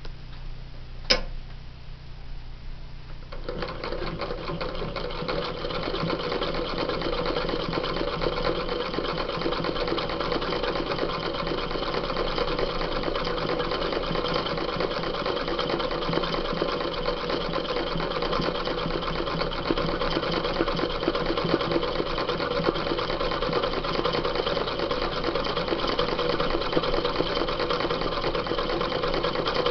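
Sewing machine stitching machine embroidery through denim held in an embroidery hoop. A single sharp click about a second in, then the machine starts about three and a half seconds in and runs at a steady fast stitch.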